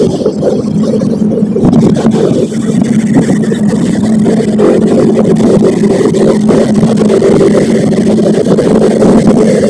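Motorcycle engine running at a steady speed while riding, with a rough rumble of wind and road noise underneath.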